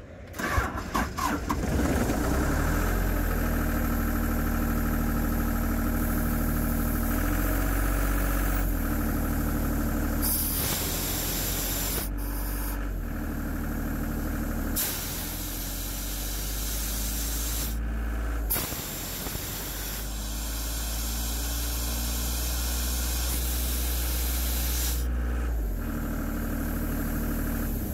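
1995 Ingersoll Rand P175 portable air compressor with its three-cylinder John Deere diesel, started about half a second in and then running steadily. From about ten seconds in, compressed air blows out of its blue outlet ball valve in loud hissing stretches over the engine, stopping a couple of seconds before the end.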